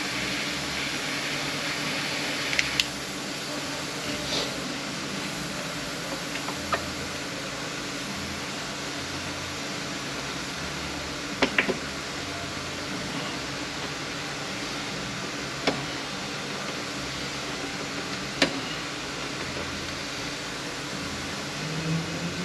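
Steady rushing background noise with about six sharp clicks and knocks spread through it, from tools working on a transmission.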